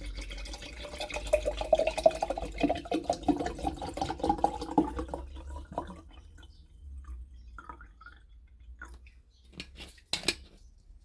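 Vinegar glugging out of a plastic bottle into a glass jar for about six seconds as the jar fills. A few light knocks follow near the end.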